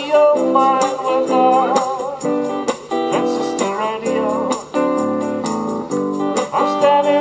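Live music led by an f-hole archtop guitar strummed in a steady rhythm, with a melody line above it that wavers in pitch.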